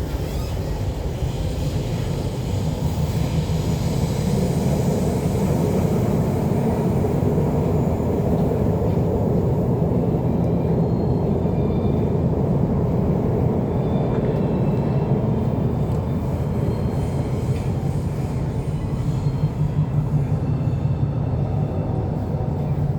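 MTR Tuen Ma Line C-Train electric multiple unit running between stations: a steady rumble of wheels on rail and running gear, heard from inside the car. It grows louder over the first few seconds as the train picks up speed, then holds, with a faint high whine from the traction equipment.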